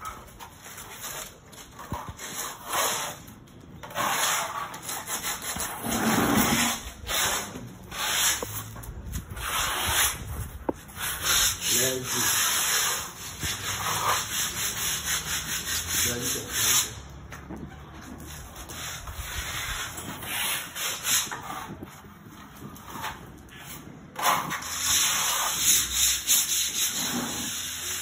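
Plastering trowel scraping skim-coat plaster across a wall in repeated strokes of about a second each, a rough rasping scrape with each pass.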